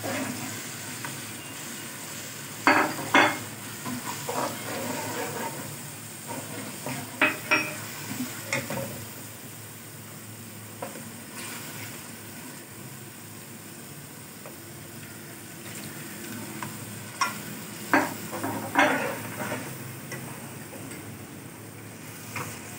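Chicken in a yogurt masala sizzling in an aluminium wok while a steel ladle stirs and scrapes it. The ladle clinks against the pan in short clusters, about three seconds in, around eight seconds, and again near eighteen seconds.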